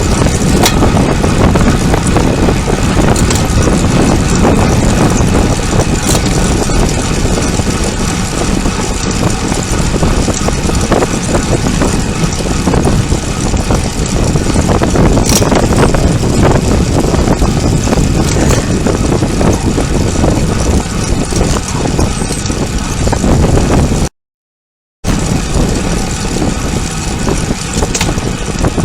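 Steady, loud wind rush over the microphone while riding a bicycle at speed, heaviest in the low end. It cuts out for about a second near the end, then returns.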